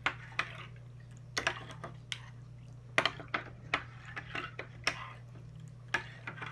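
Metal spoon stirring in a ceramic mug, clinking against its sides: about a dozen sharp, irregularly spaced clinks.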